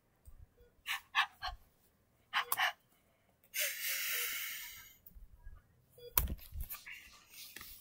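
Tissue paper rustling and stuffed toys being handled. There are a few short scratchy rustles, then a longer rustle lasting over a second, then a sharp knock with a dull thump about six seconds in.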